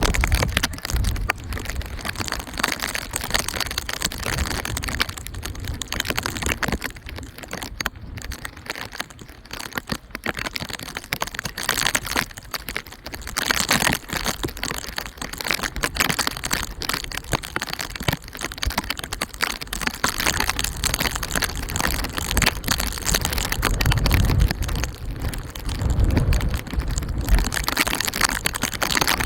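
Steady rain with many small crackles, and low rumbling surges near the start and again near the end.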